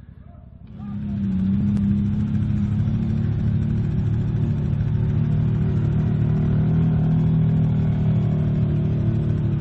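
ATV engine running loud at high revs. It comes in abruptly just under a second in, its pitch easing down a little over the first couple of seconds, then holds a steady note.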